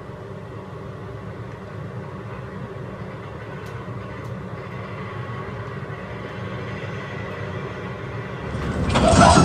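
N-gauge model freight train running on its track: a steady rumble of wheels on rails that slowly grows louder. It rises sharply near the end as the container wagons pass close by.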